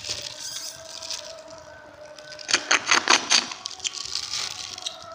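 A quick run of crisp crinkles from a plastic bag of rice porridge being handled, about halfway through, over a faint steady hum.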